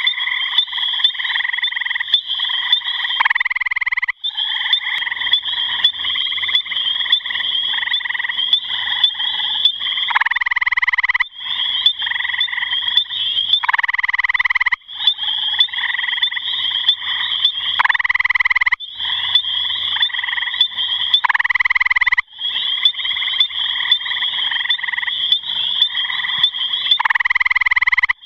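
Gray tree frog (Hyla versicolor) giving its loud musical trill. There are six calls, each about a second long and a few seconds apart, over a steady trilling chorus of other frogs.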